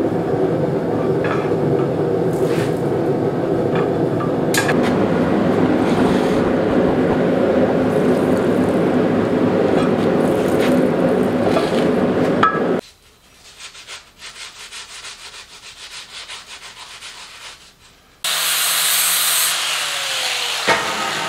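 Steel armor plate, heated until a magnet no longer sticks to it, held in tongs in a quench tank, the quenchant boiling and sizzling steadily as the steel hardens. The sound drops off abruptly about 13 seconds in. Near the end an angle grinder runs briefly, its pitch falling.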